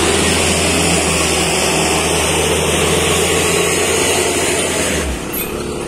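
Isuzu Elf minibus's diesel engine labouring up a steep climb as it passes close by, loud and steady, dropping off somewhat about five seconds in.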